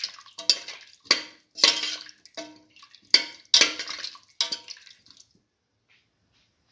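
A metal spoon stirring potato pieces in a watery, spiced broth in a metal pot. About seven splashing strokes, with the spoon scraping and clinking against the pot, stopping about five seconds in.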